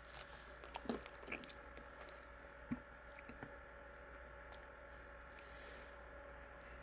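Faint chewing and wet mouth sounds of someone eating sauced chicken nuggets, a few soft clicks and smacks in the first few seconds, then only a low steady hum.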